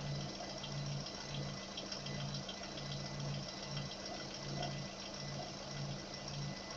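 Vehicle engine running steadily with a hiss and a faint, rapid light ticking, recorded for a knock.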